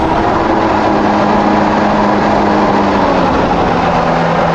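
2017 Kawasaki SX-R 1500 stand-up jet ski's four-cylinder four-stroke engine running steadily at speed, with a loud rush of wind and water. The engine note drops slightly about three-quarters of the way through.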